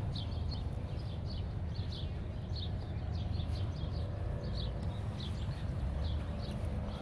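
A small bird chirping over and over, short high calls about two a second, over a steady low rumble.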